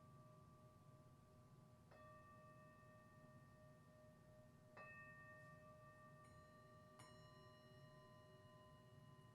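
Tibetan singing bowls struck one after another, faint, about four strikes in all. Each bowl rings on with several steady overtones, so the tones overlap.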